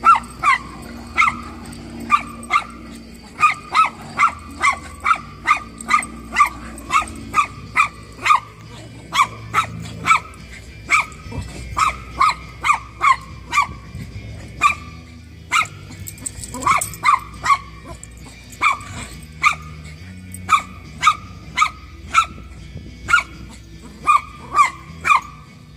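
Jack Russell Terrier mix barking in play as the dogs chase each other: sharp, high-pitched barks repeated about two a second, with a few short pauses.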